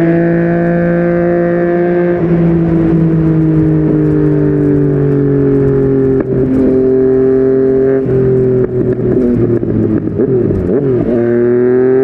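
Yamaha MT-09 inline three-cylinder engine through a Yoshimura R55 slip-on exhaust, heard on the move. It runs steadily, then falls slowly in pitch from about two seconds in as the bike eases off. Several sudden changes in pitch follow in the second half, as gears change, and it climbs again near the end.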